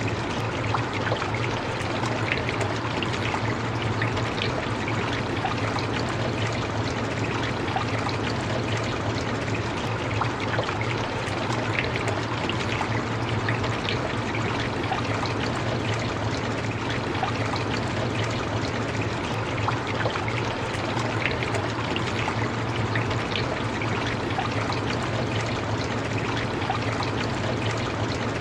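Steady rain: an even hiss dotted with small drop ticks over a constant low hum, unchanging throughout.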